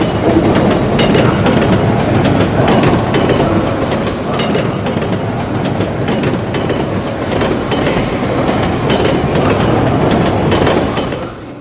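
Double-deck electric commuter train running along a station platform, its wheels clacking over the rail joints against a steady loud noise of the train.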